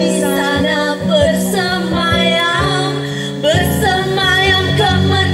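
Acoustic guitar played live, with a woman singing over it.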